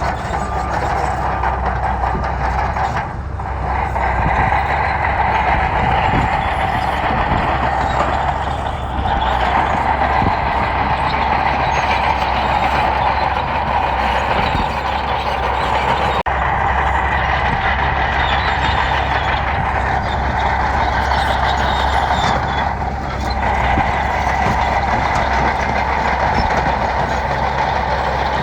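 Bulldozer's heavy diesel engine running steadily under work, with a constant high whine over the low rumble, easing briefly a few times.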